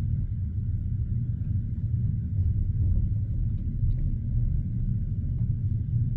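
Steady low rumble of a passenger train carriage heard from inside, with a few faint ticks and no distinct rhythmic clatter of the wheels.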